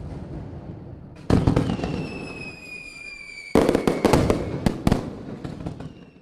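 A rushing noise, then a high whistle that falls slightly in pitch, cut off by a burst of rapid, sharp crackling pops that fade out, like fireworks.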